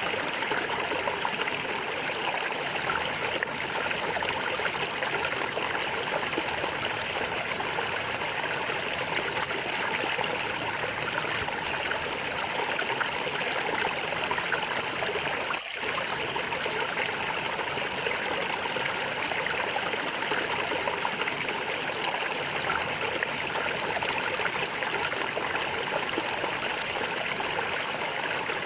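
Flowing water gurgling steadily, with one brief dip in loudness about halfway through.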